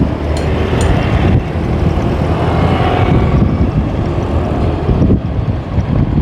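Steady low engine rumble mixed with wind buffeting the microphone, with a few light ticks in the first second.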